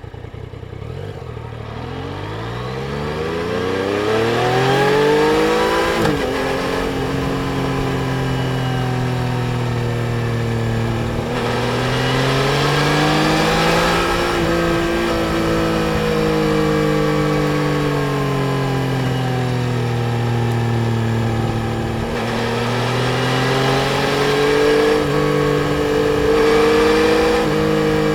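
Yamaha Tracer 900 GT's inline three-cylinder engine accelerating, its pitch climbing steadily for about six seconds until an upshift drops the revs. It then pulls on at part throttle, the pitch rising and falling gently, with slight dips about halfway and about three-quarters of the way through.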